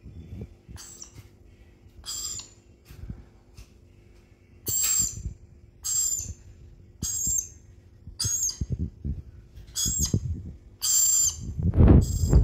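A parrot giving a string of short, high-pitched calls, about one a second. A loud low thump comes just before the end.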